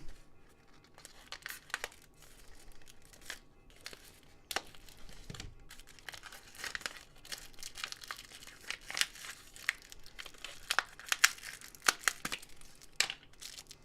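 Wrapper of a packaged foldable spoon being torn open and crinkled, a run of irregular crackles and small snaps.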